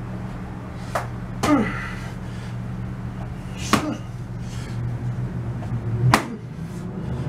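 Boxing glove striking a hand-held pad: four sharp smacks at uneven intervals, the later three each followed by a short falling tone, over a steady low hum.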